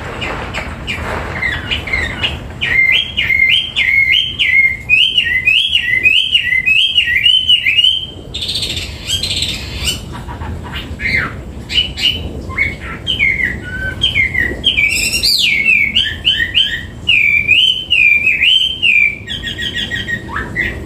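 Hwamei (Chinese melodious laughingthrush) singing: loud, varied phrases of fast, repeated whistled notes that rise and fall, with a short break about eight seconds in.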